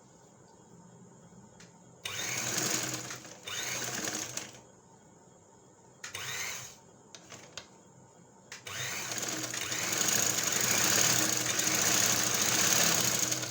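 Sewing machine stitching in short starts and stops, then running steadily for about five seconds near the end as a fabric strip is sewn onto a garment edge.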